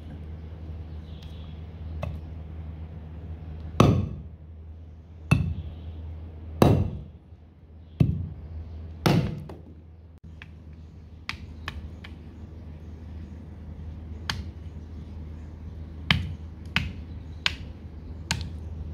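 Heavy cleaver (toka) chopping through cow trotter bones on a wooden log block: five hard blows about a second apart, then a run of lighter, sharper knocks in the second half, over a steady low hum.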